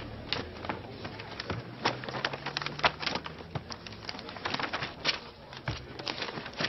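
Paper rustling as sheets in stacks of manila case files are flipped through quickly: a fast, irregular run of crisp flicks and rustles.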